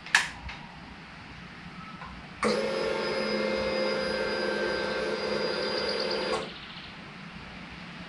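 A sharp click, then a small electric motor whirring at one steady pitch; it starts abruptly about two and a half seconds in and stops about four seconds later.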